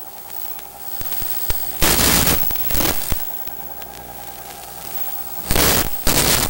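Bursts of hissing static from a wireless spy camera's radio link as the signal breaks up. A long burst comes about two seconds in, then short ones, and two more near the end, over a steady hum with a few sharp clicks.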